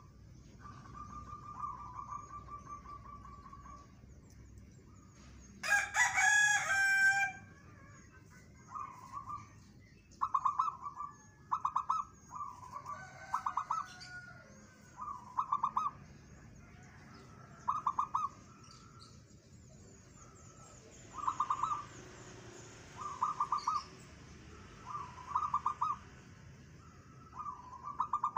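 Zebra dove (perkutut) singing: a dozen or so short trilled coos, one every second or two. A rooster crows once about six seconds in, louder than the dove.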